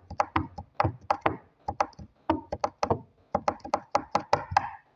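Rapid knocks on a hard surface, about four to five a second in an uneven rhythm, like fingers or palms drumming on a desk.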